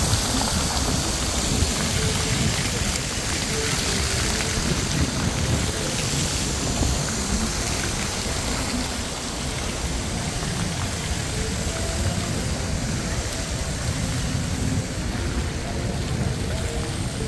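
Steady outdoor city street noise: an even hiss over a low rumble, like passing traffic, with nothing sudden standing out.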